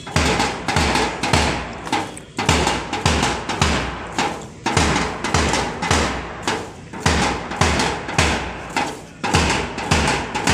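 A column of cadets marching in step, their boots stamping on the road in an even rhythm of about two beats a second.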